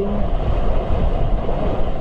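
Wind rushing over the microphone and water rushing along the hull of a sailing yacht under way, a steady noisy rush heaviest in the low end.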